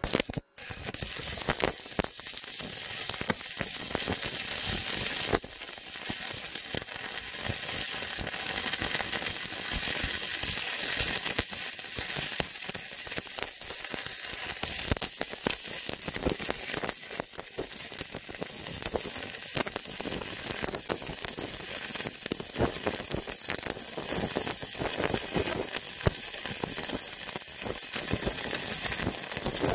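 Stick-welding arc burning a 3.25 mm E6013 electrode at 130 amps from a Paton ECO 200 inverter welder: a continuous crackling sizzle. The arc is struck at the very start and breaks off for an instant about half a second in before catching again.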